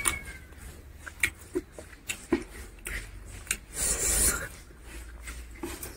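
Close-up eating by hand: fingers squelching through rice and curry on the plate, with chewing and lip-smacking clicks, and a louder wet rush about four seconds in as a handful goes into the mouth.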